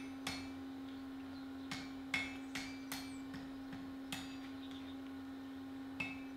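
Hand hammer striking a glowing axe blank on an anvil during fluxless forge welding of the eye to the blade. A run of light blows with a short ring after each, a pause of about two seconds, then another blow near the end, over a steady low hum.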